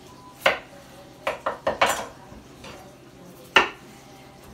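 Kitchen knife cutting red potatoes on a wooden cutting board: about six sharp, uneven knocks, several bunched together in the middle.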